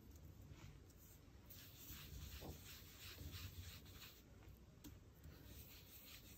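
Faint, repeated soft rubbing strokes of a round ink blending brush worked over a stencil on cardstock, applying ink through the stencil's circles.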